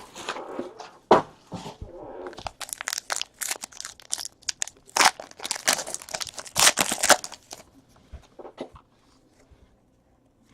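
Trading-card pack wrappers being torn open and crinkled, a dense run of sharp crackles for about seven seconds that then dies away to a few faint ticks.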